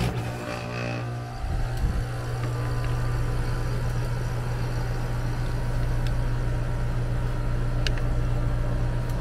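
Trane air-conditioning condensing unit starting up: a click as the breaker is switched on, then the compressor and condenser fan come on with a steady low hum that builds over the first two seconds and runs on steadily. A couple of faint ticks come near the end.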